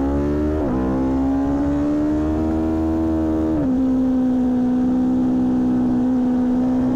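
Aprilia Tuono V4 1100 Factory's V4 engine accelerating hard on track, picked up by a microphone in the front fairing and slightly distorted. Its pitch climbs and drops sharply at two quick upshifts, one just under a second in and one about three and a half seconds in, then holds steady.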